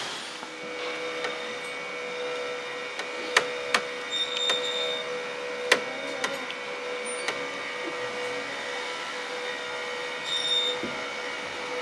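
Found-object instruments of a live theatre sound score: a steady drone of held tones, three sharp knocks in the first half, and two short high ringing notes.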